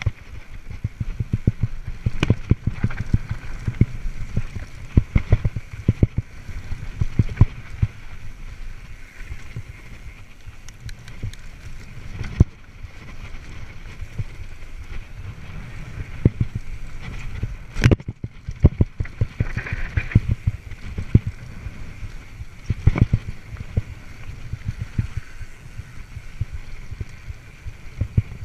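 Mountain bike clattering and rattling as it is ridden fast down a rough dirt singletrack: the tyres running over the dirt with a low rumble, and frequent irregular knocks from the chain and frame over bumps.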